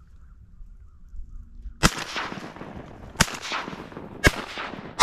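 Shotgun shots at a flying duck: three sharp blasts about a second apart, each trailing off in a long echo, with a fourth shot right at the end.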